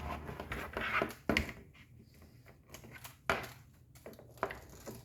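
A few light knocks and clicks in a small room, the clearest about a second in and again a couple of seconds later, with faint ticking between.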